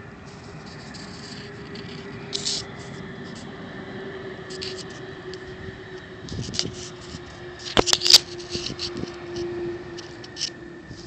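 Airbus A310 jet engines whining steadily as the airliner rolls out after landing, the pitch sinking slightly. Over it come scraping and clicking from the phone being handled, loudest in a burst of sharp clicks about eight seconds in.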